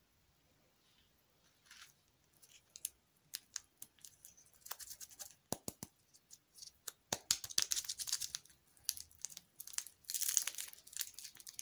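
A lollipop's plastic wrapper crinkling and crackling as fingers pick at it and peel it off. The crackles begin after about two seconds as scattered clicks, then grow denser and louder toward the end.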